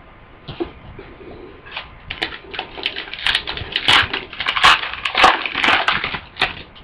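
Trading cards being handled and shuffled by hand: a run of irregular scraping, rustling and small clicks of cardboard and card sleeves, busiest in the middle.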